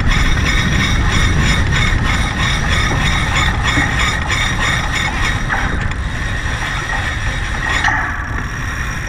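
Sailboat winch ratcheting as a line is hauled in: fast, even clicking that stops about eight seconds in, over a steady rush of wind and water.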